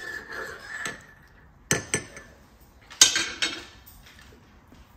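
Metal spoon stirring coffee in a ceramic mug, with light clinks, then two sharp clinks of the spoon against the mug a little under two seconds in. A brief louder noise follows about three seconds in.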